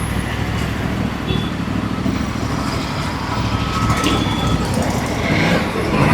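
Aprilia Tuono 457's 457cc parallel-twin engine running steadily as the motorcycle is ridden.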